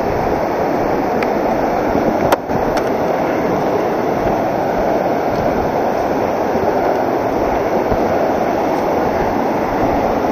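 White-water rapids of a mountain river rushing over rocks, a loud, steady roar of water. One short knock about two seconds in.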